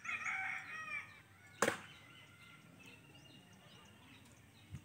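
A bird calls in a quick run of rising-and-falling notes lasting about a second, then a sharp click, then faint high chirping of small birds.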